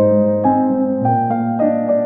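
Background piano music, a new note sounding about every half second.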